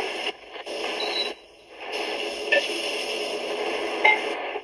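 Diced onions sizzling in hot oil in a frying pan, with a couple of sharp clicks of a utensil against the pan near the middle and the end.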